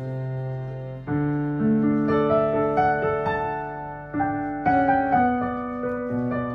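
Digital piano played slowly: sustained chords under a simple melody, a new note or chord struck about every half second, with firmer chord strikes about a second in and about four seconds in.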